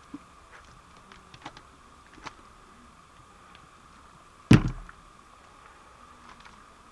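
A bottle set down on a wooden step with one loud thump about four and a half seconds in, after a few faint wet clicks from slimy hands handling it.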